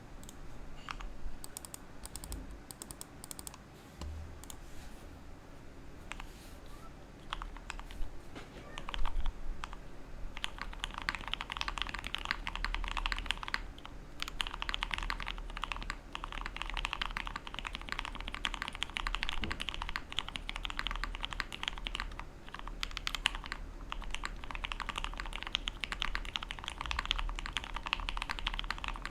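Typing on a Bakeneko60 mechanical keyboard with tactile Cherry MX Brown switches mounted on an aluminum plate. There are scattered keystrokes at first, then steady fast typing from about ten seconds in.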